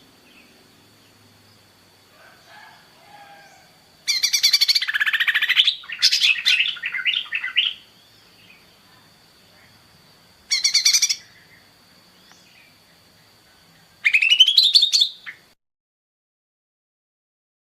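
A bird calling in loud, rapid, trilled bursts: one long run about four seconds in, a short one near the middle and a rising one near the end. A faint steady high tone runs between the calls, and the sound cuts off completely shortly before the end.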